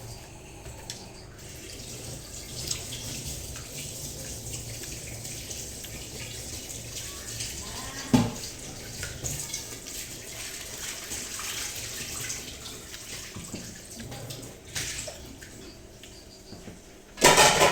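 Water running steadily, as from a tap, with a sharp knock about eight seconds in and a loud sudden noise near the end.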